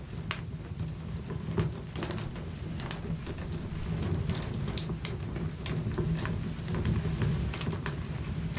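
Wood fire crackling in a fireplace: a steady low rumble of flames with irregular sharp pops and snaps.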